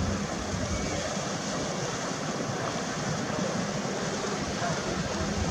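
Steady rushing noise of wind and water at the waterfront, with a faint low steady hum under it.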